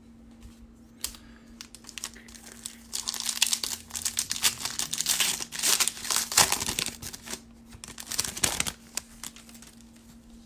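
Foil wrapper of a 2019 Certified football card pack crinkling and tearing as it is opened by hand, from about three seconds in until about nine seconds in.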